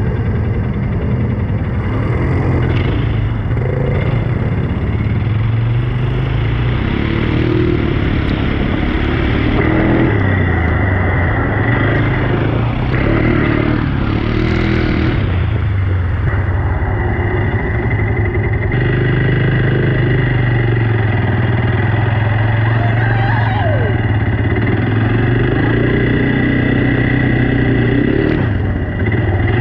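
ATV (quad bike) engine running under way, its pitch rising and falling as the throttle opens and closes.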